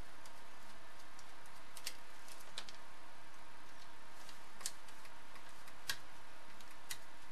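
Small, irregular metallic clicks of a screwdriver working the small screws on a bug zapper's metal top plate, a few sharp ticks spread unevenly over a steady hiss.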